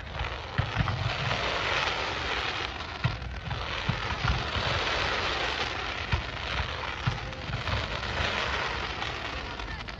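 Fireworks display: a continuous crackling hiss from rising comets and glitter tails, with frequent short thumps from shells firing off.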